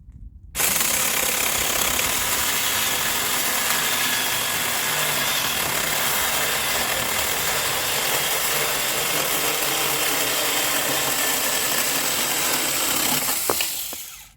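Saker 4-inch cordless electric mini chainsaw cutting through a wooden fence post. The chain starts suddenly just after the beginning, runs steadily through the wood for about 13 seconds, then stops near the end as the cut is finished.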